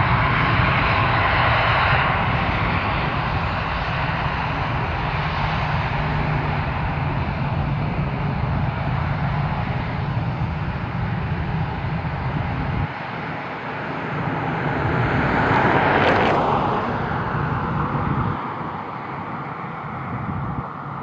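Jet airliner engines running with a steady roar. A pass-by swells to its loudest about sixteen seconds in, with a falling whine, then fades away.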